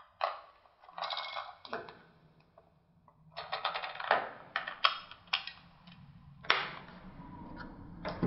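Handling of a new camera speedlight and its packaging: a run of irregular plastic clicks and short rustling scrapes.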